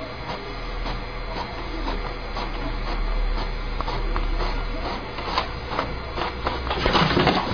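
Desktop inkjet printer running, its mechanism whirring and clicking in repeated short strokes, loudest near the end.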